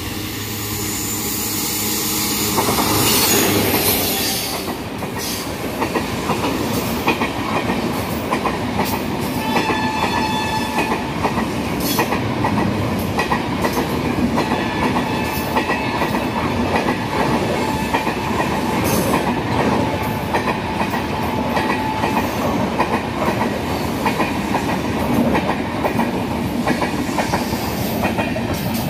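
WAP-7 electric locomotive and its LHB passenger coaches passing at speed, loudest as the locomotive goes by in the first few seconds. Then comes a long steady rumble of coaches with the clickety-clack of wheels over rail joints and a thin ringing tone at times.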